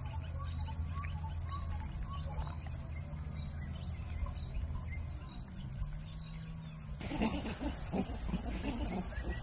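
Outdoor ambience with low hooting calls in the background. About seven seconds in it changes abruptly to a steady high hiss with a burst of vervet monkey calls from a squabble.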